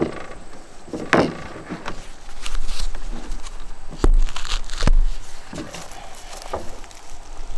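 Lumber being handled on a plywood work surface: boards knocking and scraping, with two sharp knocks about four and five seconds in.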